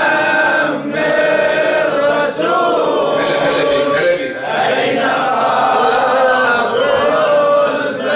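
Male voices chanting an Arabic Shia mourning elegy in long, drawn-out melodic phrases.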